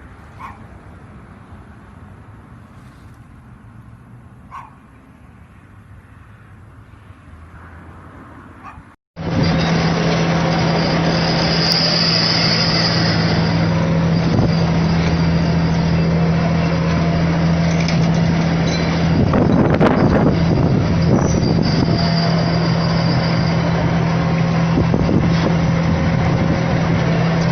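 Quiet outdoor background with a few faint knocks, then, after a sudden cut, an engine running steadily and loudly with one constant low hum.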